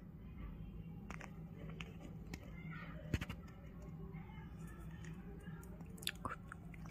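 Light clicks of small plastic animal figures being picked up and set down, the sharpest about three seconds in and a few more near the end, over a steady low hum and faint voices.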